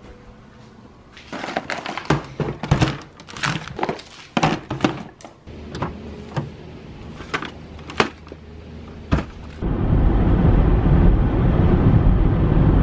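Fishing gear being handled and loaded: a string of knocks, clunks and rattles, with a low steady hum setting in a little before halfway. About three-quarters of the way through, this gives way to the steady rumble of road noise inside a moving vehicle's cabin.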